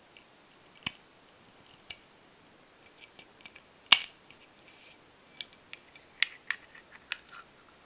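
Small plastic wire connectors and parts of a model engine's control box clicking as they are plugged in and handled: sharp separate clicks, the loudest about four seconds in, then a quicker run of lighter clicks in the second half.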